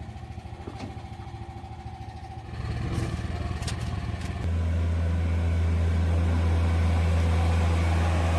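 Diesel engine of a CL50 compact loader running with a low, pulsing idle, then getting louder about two and a half seconds in and settling into a loud, steady low drone from about four and a half seconds in as the engine is worked harder. A few light clicks come near the middle.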